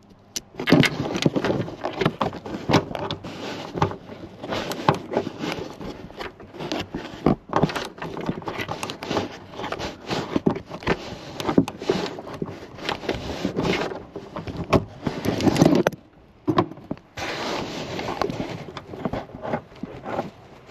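Irregular scraping, rustling and clicking of hands and a socket working up behind the vehicle's roof trim to undo the roof antenna's retaining nut, with a short pause about three-quarters of the way through.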